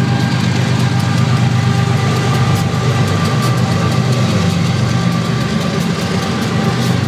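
GE ES44DC diesel locomotive with a GEVO V12 engine, running as the rear distributed-power unit rolls slowly past. A steady low engine drone with a thin steady whine above it.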